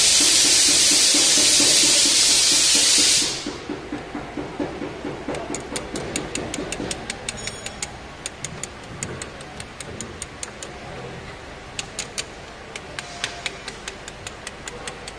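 A loud steady hiss that fades out a little over three seconds in, then runs of quick, light metallic clicks from a spanner working the battery terminal nuts.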